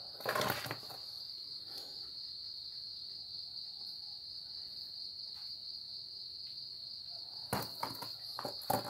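Handling noise of a small Tanaka chainsaw being turned over on cardboard: a short scuffle about half a second in and a few knocks and rustles near the end. Under it a steady high-pitched trill.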